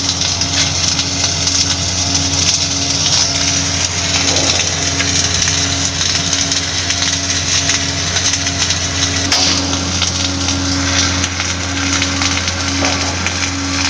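Automatic pipe-welding machine at work: a steady, dense arc crackle over a constant low machine hum.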